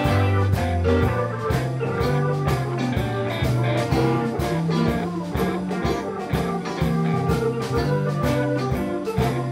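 Live blues band playing an instrumental passage: electric guitars and keyboard over a drum kit keeping a steady beat, with a low bass line stepping from note to note.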